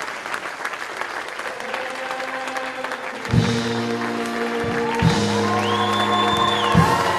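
Audience applause at a stage musical's curtain call. About three seconds in, the pit music comes in under it with sustained chords and strong accented hits about every second and three-quarters.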